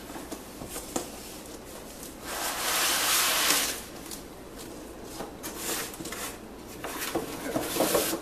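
Cardboard laptop-box packaging being handled: a long scraping slide of cardboard about two seconds in, then rustling and light knocks as cardboard pieces are pulled out of the box.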